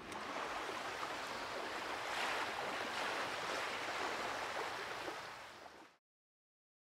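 Steady wash of open-ocean waves, with no distinct breaks or strokes, fading out about five to six seconds in.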